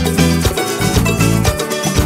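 Trinidad parang band music in an instrumental passage: plucked strings over a bass line moving in short, repeated notes.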